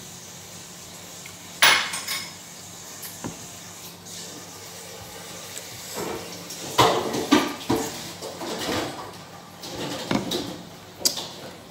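Ceramic and stainless steel dishes clinking and knocking as food is picked from them by hand, with eating sounds in between; a few sharp clinks come about two seconds in, around seven seconds in, and near the end.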